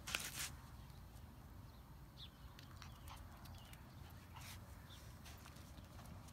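Faint, scattered clicks and scuffs of puppies' claws and paws on concrete as they wriggle about, with a short rustle as it begins.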